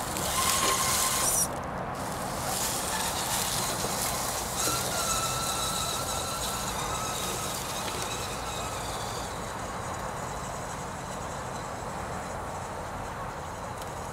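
Axial Honcho RC crawler's 35-turn brushed electric motor and drivetrain whining as the truck climbs away over dry leaves and twigs, with the tyres crunching and rustling through the litter. A louder burst of rustling comes in the first second and a half, and a thin whine stands out from about four to nine seconds in.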